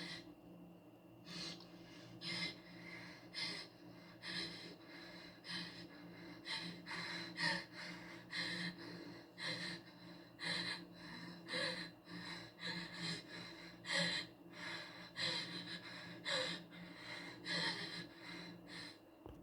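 Short breathy bursts from a person's mouth, repeated irregularly about one or two a second, over a steady low hum.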